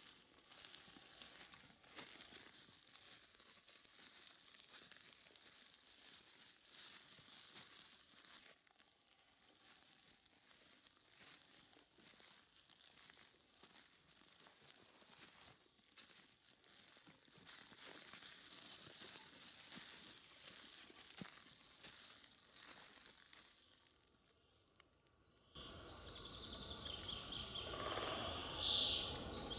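Irregular crackling and rustling of dry forest-floor litter of leaves, needles and twigs while moving through the woods. About 25 seconds in, the sound changes to a steadier outdoor background with birds calling near the end.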